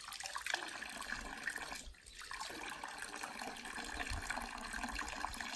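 Spring water pouring in a thin stream from the metal spout of a stone fountain and splashing into the stone trough below, a steady trickle with a brief drop about two seconds in.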